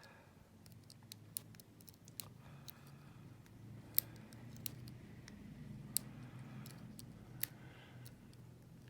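Lock picking in a Skillman lock cylinder: irregular small metallic clicks and ticks of the pick and tension wrench working the pin stacks, with a few sharper clicks, over a faint low hum.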